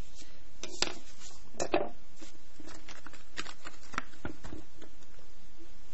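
Crayons clicking and rattling in a cardboard crayon box as one is picked out: irregular light clicks and taps, sharpest about a second in and just before two seconds in.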